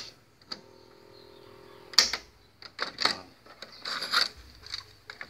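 Faint steady hum of the cassette deck's small motor spinning with no belt fitted, so the tape is not driven. About two seconds in, a sharp click of the transport key, then plastic clicks and clacks as the cassette door opens and the tape is pulled out.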